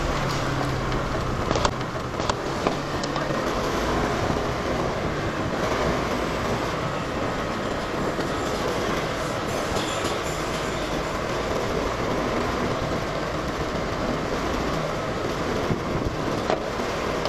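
Motorbike riding along a street: steady engine, tyre and wind noise with a few light knocks from bumps.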